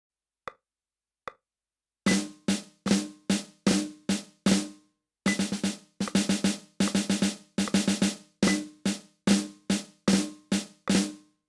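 Snare sound of a Roland electronic drum kit played as flams and ruffs, each main stroke led by quick grace notes, in an even run of about two to three strokes a second with a short break partway. Two faint clicks come before it starts.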